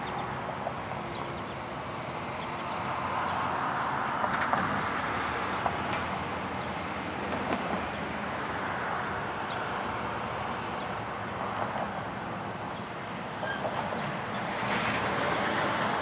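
Outdoor road-traffic noise with some wind: a broad rushing sound of vehicles passing, swelling about three seconds in and again near the end.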